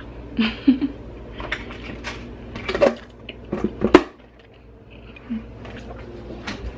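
Scattered light knocks and clatter, the sharpest about four seconds in, over a low steady hum that stops at that point.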